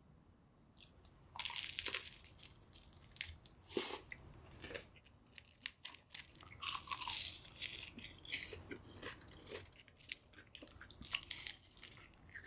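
Close-miked eating of crunchy food: crisp crunching bites and chewing that come in irregular clusters, with short quieter pauses between them.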